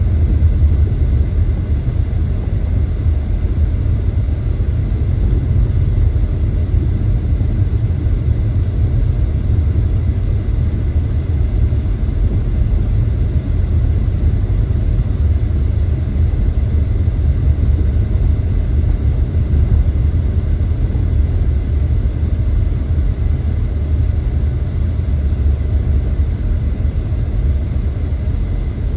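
Steady low rumble of a car driving on a gravel dirt road, heard from inside the car: tyre and road noise mixed with the engine.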